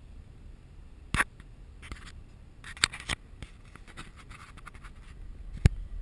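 Several sharp clicks, the loudest a little over a second in and another near the end, with bouts of scratchy rustling between them, over the low rumble of a car cabin: something being handled inside the car.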